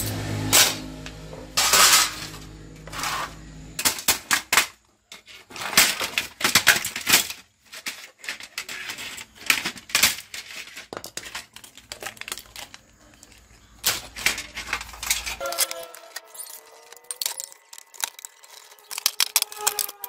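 Sheet-metal cover and plastic casing parts of a radio receiver clanking, clicking and rattling as they are pried off and handled during dismantling, in irregular sharp knocks.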